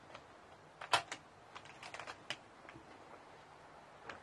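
Sparse, light clicks and ticks over a quiet background, irregular and a few a second at most, the loudest about a second in.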